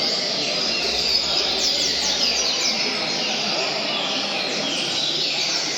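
Many double-collared seedeaters (coleiros) singing over one another in quick, falling whistled phrases, the massed song of a coleiro singing tournament. A steady murmur of people talking runs underneath.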